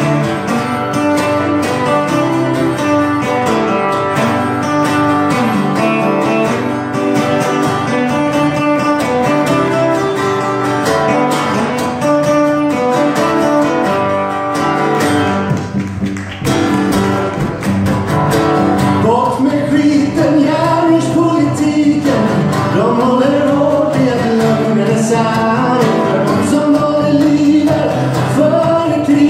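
Live acoustic folk-country music: acoustic guitars strummed together, instrumental at first, then men's voices come in singing about two-thirds of the way through.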